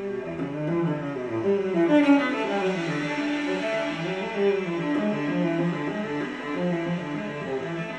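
Classical music played back through Eosone RSF-1000 four-way loudspeakers, a flowing passage of pitched string-like notes that grows brighter about two seconds in.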